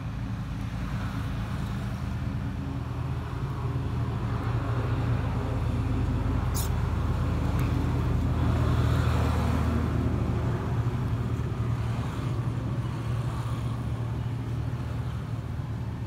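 Motor vehicle engine running with a steady low hum, growing louder toward the middle and easing off again. A brief high squeak about six and a half seconds in.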